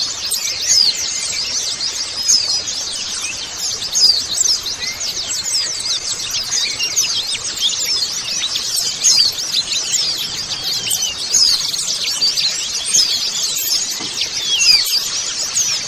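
A crowd of white-eyes (pleci) chirping together: a dense, unbroken twittering of many quick, high chirps and short trills overlapping one another.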